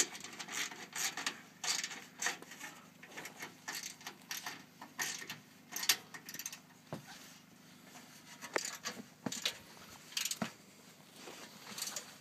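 Irregular metallic clicks, taps and scrapes as a mounting clamp is worked into place between a solar panel's metal frame and the roof rail, with a sharp clack right at the start.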